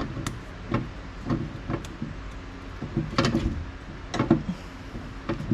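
Self-fusing silicone rescue tape being stretched hard as it is wrapped, giving a string of short, irregular rubbery squeaks.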